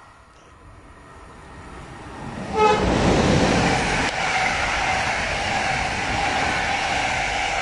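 Passenger train passing close by: a rumble builds, a very short horn toot sounds about two and a half seconds in, then the coaches' wheels and rails rush past loudly and steadily to the end.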